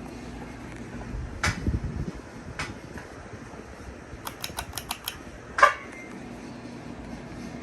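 SMC Royal Flush 42 ceiling fan with a low motor hum that drops away about a second and a half in and returns near the end. In between come sharp clicks and knocks, including a quick run of about six clicks and one loudest click just before the hum comes back.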